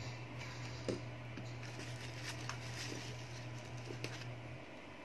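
Faint small clicks and ticks of a precision screwdriver and hands handling an opened iPhone during a screen replacement, with a click about four seconds in as the screwdriver is set down. Under them a steady low hum that cuts off near the end.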